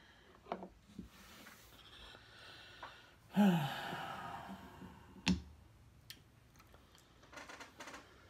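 Light clicks and taps of wooden Jenga blocks being nudged and pushed in a tower, with a breathy, falling sigh about three and a half seconds in and a sharper click a couple of seconds later.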